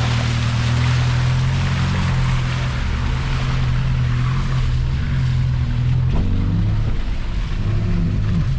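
An off-road 4x4's engine running hard and steadily as it drives through deep water, with a rushing wash of water over it; the engine note shifts about six seconds in.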